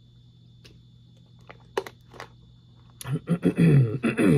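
A man drinks from a plastic water bottle with a few faint clicks, then about three seconds in clears his throat harshly in a couple of rough bursts falling in pitch: the lingering cough and sore throat he is getting over.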